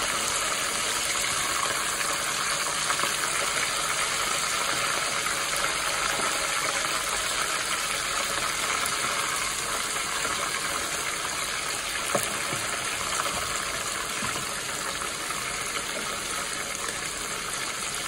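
Hot oil sizzling steadily in a deep pot as parboiled dove pieces fry to brown. A single sharp click sounds about twelve seconds in.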